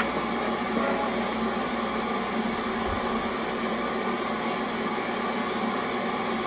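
Film trailer soundtrack played back through laptop speakers: a light ticking beat that stops about a second in, then a steady hum and hiss with no beat.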